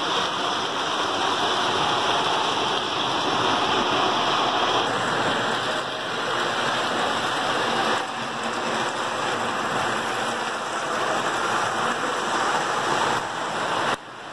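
Lionel O-gauge toy trains running on tubular steel track: a steady rushing whir of the motors and the metal wheels on the rails. The level shifts abruptly a few times.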